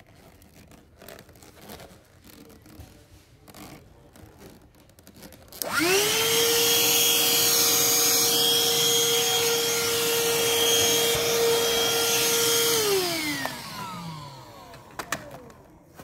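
Black & Decker Dustbuster Pivot 14.4 V cordless handheld vacuum (PV1420L) switched on, its motor spinning up quickly to a steady high whine. It runs for about seven seconds, then is switched off and winds down with a falling pitch.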